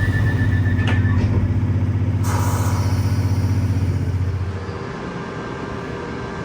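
London Underground 1973 Stock train at a stop. Its pulsing high door-warning tone ends about a second in with a couple of knocks as the doors shut, and a short hiss of air follows about two seconds in. Under these runs a loud low rhythmic hum from the train's equipment, which drops away after about four and a half seconds.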